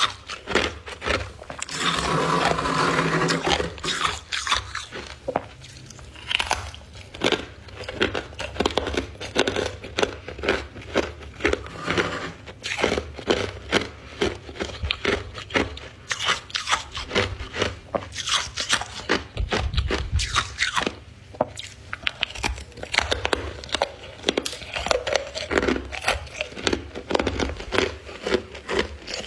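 Close-up crunching and chewing of a chunk of white freezer-frost ice: rapid, crisp crackling crunches one after another, with a louder, longer crunch about two seconds in.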